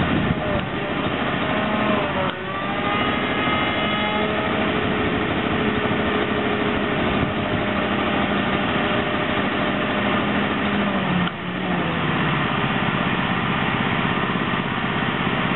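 Pressure washer, turned down to about 400 PSI, running steadily together with a 16-gallon, 6.5-horsepower shop vacuum that reclaims the spray water. The pitch briefly dips and shifts about two seconds in, and again about eleven seconds in.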